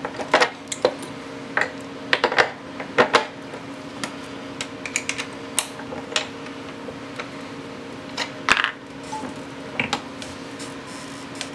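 Scattered metal clicks and clinks from handling a red single-stage reloading press: the sizing die being turned in the press head and a spent brass cartridge case being set into the shell holder on the ram. A louder cluster of clinks comes a little past two-thirds of the way through.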